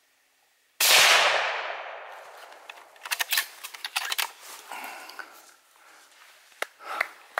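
A single rifle shot about a second in, its report dying away through the forest over a second or so. After it, a scatter of short clicks and quiet rustles.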